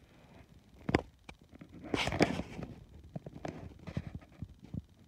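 Handling noise from a handheld phone camera: a sharp click about a second in, a short burst of rustling around two seconds in, then scattered light taps and clicks.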